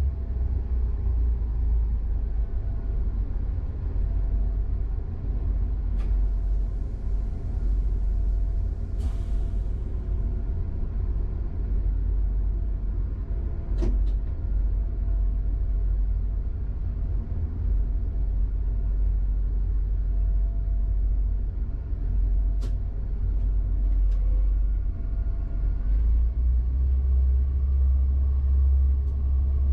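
Steady low rumble inside the driver's cab of an AGC regional multiple unit rolling slowly at about 22 km/h, with faint steady whining tones above it. A few sharp clicks break in, singly and several seconds apart.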